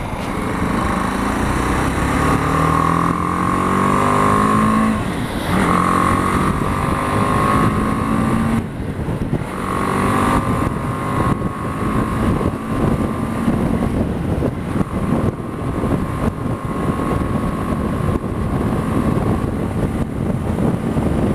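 BMW G 310 GS's 313 cc single-cylinder engine accelerating hard up through the gears, its pitch climbing in each gear with two breaks for gear changes in the first ten seconds, then running steady at high revs, near 70 mph.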